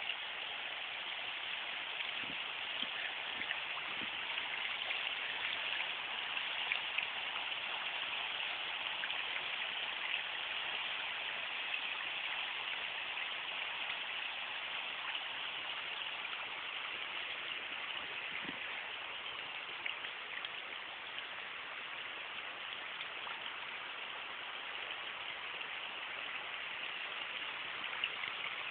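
River water flowing: a steady rushing hiss with faint scattered ticks.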